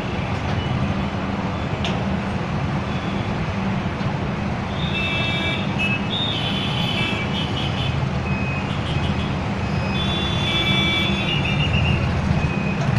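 Heavy diesel engine of earth-moving equipment running steadily. A high-pitched tone comes and goes twice over it, about five and ten seconds in.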